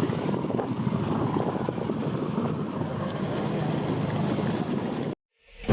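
Motorboat running at sea, a steady rumble of engine and rushing water with wind buffeting the microphone; it cuts off suddenly near the end.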